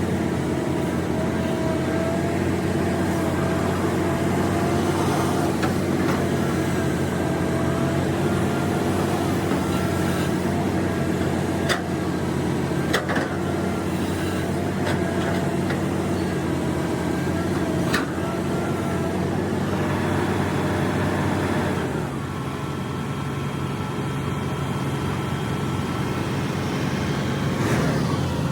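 Hitachi Zaxis excavator's diesel engine running steadily under working load, with several sharp knocks near the middle. About three-quarters of the way through, the engine note drops to a lower, quieter level.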